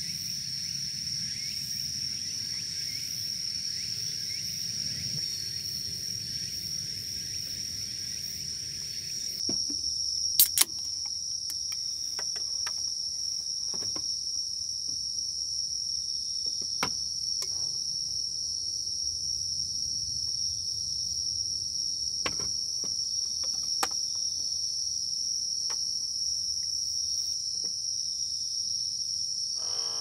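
Steady high-pitched chorus of crickets. About ten seconds in, two sharp clicks stand out, followed by scattered light taps and knocks.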